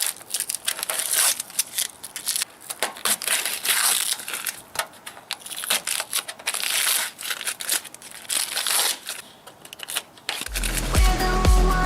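Irregular crinkling and rustling handling noises with scattered clicks. Electronic music with a heavy bass beat comes in near the end.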